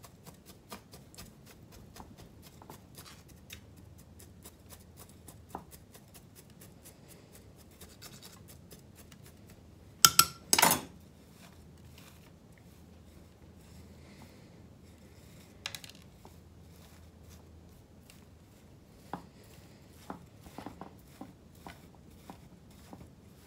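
A chopstick poked and scraped through gritty bonsai substrate in a pot, a quick stream of small scratching clicks as the grit is worked in around the roots. About ten seconds in come two loud knocks, then hands pressing down the soil surface with a few scattered clicks.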